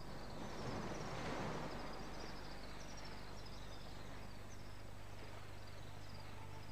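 Swifts calling: short, high descending chirps repeating irregularly about twice a second. Under them is a rushing noise that swells in the first two seconds, and a steady low hum.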